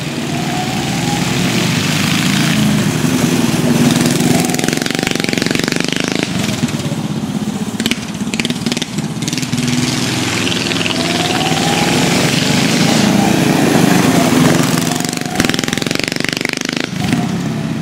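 Two mini bikes' small gas engines racing, the pitch rising and falling over and over as the riders accelerate down the straights and back off for the turns, the sound swelling as the bikes pass close and fading as they pull away.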